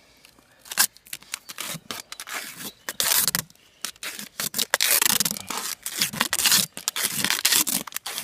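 Adhesive tape being pulled off its roll in quick, harsh rips as it is wrapped around a pipe splint on a calf's leg. The rips are scattered at first, then come thick and fast from about three seconds in.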